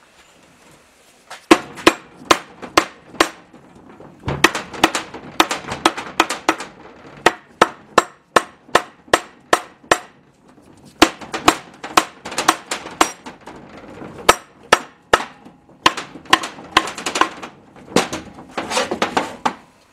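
Rubber mallet tapping the input shaft of a GM SM465 transmission, working it up and down while it is pulled, to drive the shaft and its tight front bearing out of the cast-iron case. Quick sharp taps in bursts of several, with short pauses between the bursts, starting about a second and a half in.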